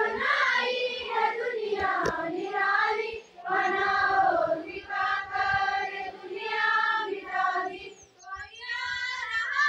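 A large group of schoolgirls singing together in chorus, in long sung phrases broken by short pauses about three and eight seconds in; the singing is softer near the end.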